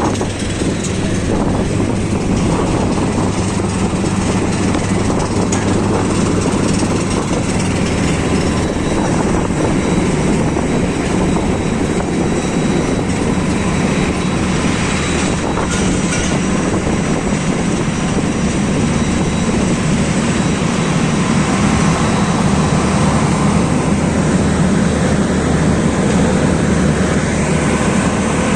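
Aircraft engines running: a loud, steady, even rumble with faint high whining tones, getting slightly louder in the second half.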